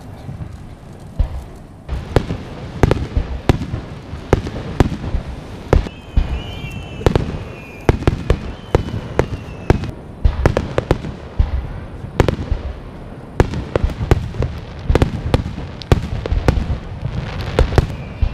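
Fireworks display: aerial shells bursting in quick succession, many sharp bangs with a low rumble echoing off the surrounding mountains between them. A few high, gliding whistles sound in the middle and near the end.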